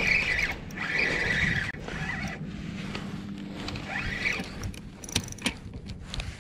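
Spinning reel being cranked in short bursts, its gears whirring as a hooked fish is reeled up. A few sharp clicks come about five seconds in.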